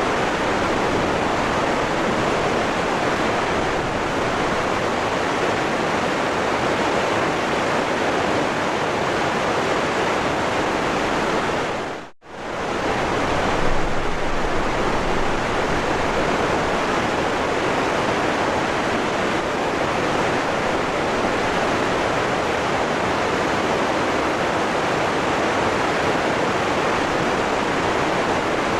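Waterfall water rushing in a steady, unbroken roar. About twelve seconds in it dips briefly to almost nothing and returns, like a loop splice.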